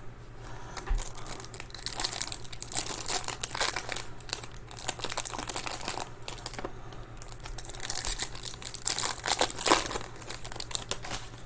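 Plastic card packaging being torn open, crinkling and tearing, heaviest in two spells of dense crackling.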